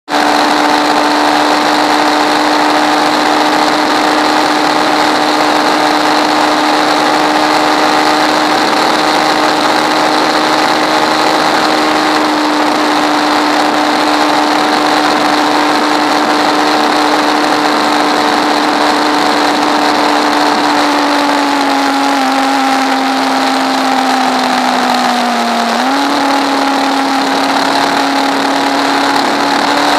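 Hyper Pro Racer race car's engine at high revs, heard on board at racing speed. Its note holds steady, sags gently, then jumps back up about 26 seconds in.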